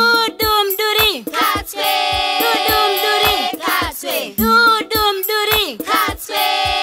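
A children's nursery rhyme sung in Shona by a group of voices in unison, over a steady low drum beat.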